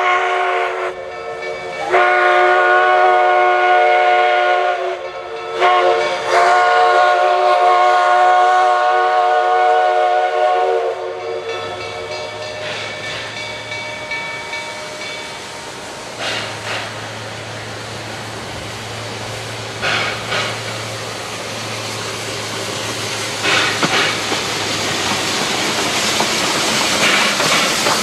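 Steam locomotive's chime whistle blowing: a blast ending about a second in, another of about three seconds, then a longer one of about five seconds. After the whistle, the steam hiss and rumble of the train grow louder as it approaches.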